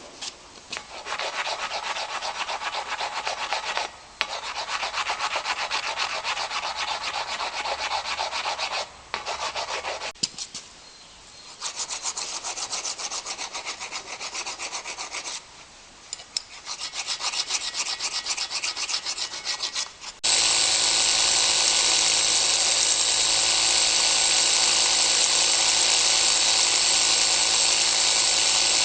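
Hand-abrading white Carrara marble, an abrasive stone and then a rasp scraping over the stone in quick repeated strokes, with a few short pauses. About twenty seconds in, this gives way to a Makita rotary hammer drill boring into the marble, running steadily and loudly.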